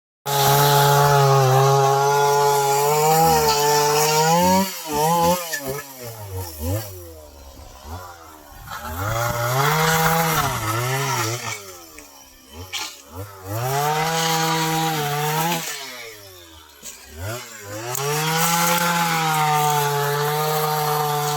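A small engine running, its pitch dipping and rising again over and over.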